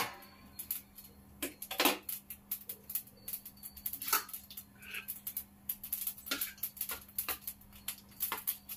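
Mustard seeds popping and spluttering in hot oil in a steel kadai: many sharp, irregular pops, the sign that the oil is hot and the tempering is done. A low steady hum sits under the pops.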